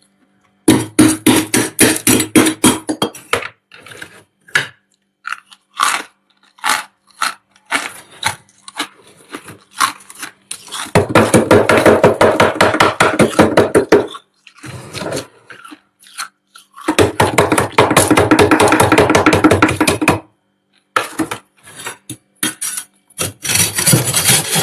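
Thick freezer frost being scraped: four bursts of fast, crunchy scraping strokes, each a few seconds long, with scattered single scratches between them.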